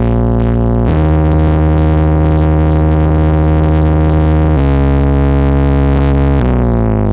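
Electronic music played loud through a towering sound-system stack of ten subwoofers during a sound check: sustained synthesizer chords over a heavy deep bass note, changing pitch about a second in, again after four and a half seconds and again after six and a half, then sliding downward near the end.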